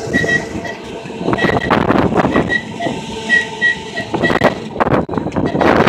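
1934 English Electric Blackpool boat tram running along the rails, heard from on board the open-top car: a steady rumble of wheels on track with many sharp clicks, and a string of about ten short, high chirps over a few seconds.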